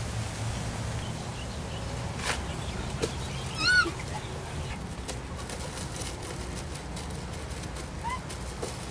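Outdoor ambience with a steady low rumble. About three and a half seconds in comes one short, high, arching call, and a fainter one near the end.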